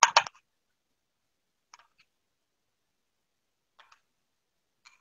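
A metal spoon clinking against a small glass bowl while sauce is scooped out: a quick cluster of sharp clicks at the start, then a few faint single ticks.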